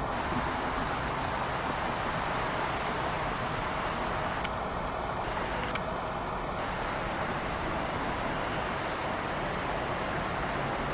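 Steady, even noise of an Airbus A380's four jet engines during landing, with no change in level.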